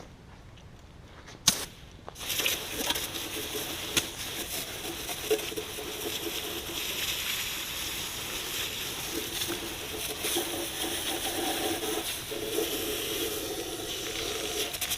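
Water sloshing and splashing as the cylinders of a Ford FE V8 engine block are washed, starting about two seconds in after a single sharp click.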